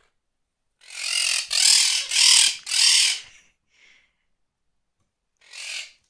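Metal chain of a hanging bird swing grating as the swing is spun round: four harsh rasps in quick succession, then a faint short one and another near the end.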